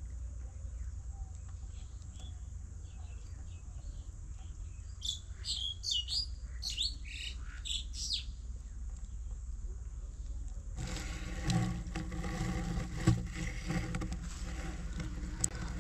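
Small birds chirping: a run of quick, high, rising and falling calls midway, over a steady low rumble. About eleven seconds in, a louder, rough noise with scattered knocks suddenly takes over.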